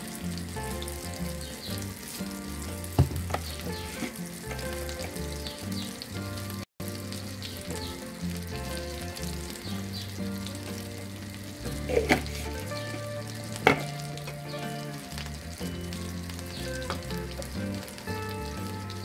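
Eggs frying in butter in a nonstick pan, a steady sizzling. A few sharp knocks come about three seconds in and twice more around twelve to fourteen seconds in.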